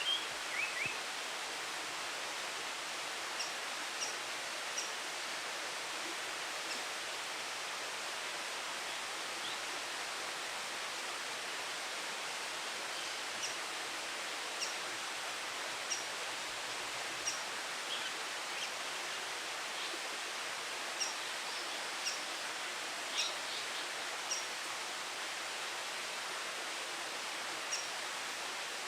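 Japanese paradise flycatcher fledglings giving short, high-pitched calls scattered every second or two, the begging calls fledglings make to their parents for food, over a steady background hiss.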